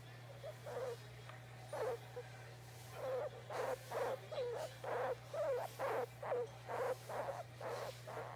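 Guinea pig making short, soft repeated calls while being stroked, a contented sound. They come sparsely at first, then about three a second from a few seconds in. A steady low hum runs underneath.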